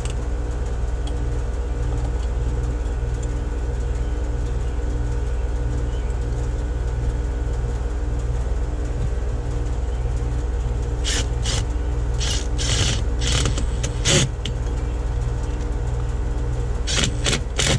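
Cordless drill driving screws through a frost-free hose valve's flange into a cinder-block wall, in several short bursts about two-thirds of the way in and again near the end. A steady low mechanical hum runs underneath.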